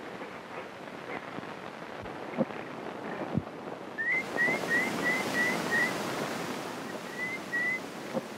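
A steady hiss with a few dull knocks, then from about halfway the sound of surf washing on a shore. Over the surf, a bird gives a run of six short rising chirps, about three a second, and two more near the end.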